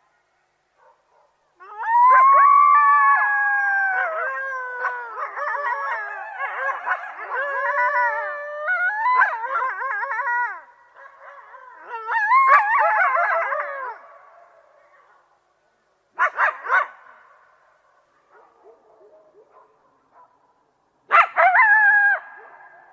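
A group of coyotes howling and yipping together, several wavering voices overlapping and gliding up and down for about twelve seconds before fading out. Two short bursts of yips follow, the second near the end.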